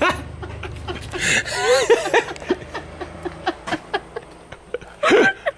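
A woman laughing, once about a second in and again near the end, with light clicks between.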